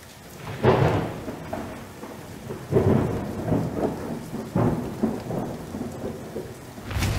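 Thunderstorm: thunder rumbling in several rolls over steady rain, with a sudden swell near the end.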